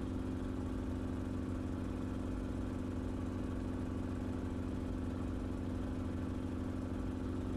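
Enstrom helicopter in cruise flight: a steady drone of engine and rotor with a strong, constant hum and a fast, even pulsing underneath.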